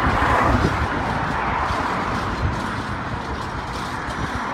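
A train running through the station, a steady rumble and rushing noise that eases off slightly.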